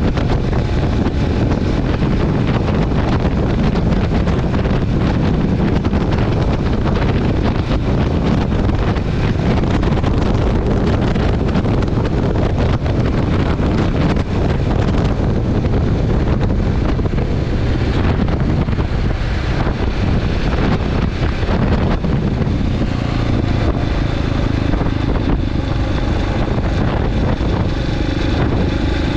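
Motorcycle riding along at road speed: the engine running steadily under heavy wind rush on the microphone. The engine's pitched note comes through more plainly in the last few seconds.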